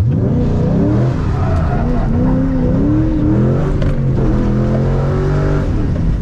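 Ford Mustang GT's 4.6-litre three-valve V8 revving under throttle through a slide, heard from inside the cabin. The revs climb in the first second, swing up and down, and drop back to a steadier note near the end.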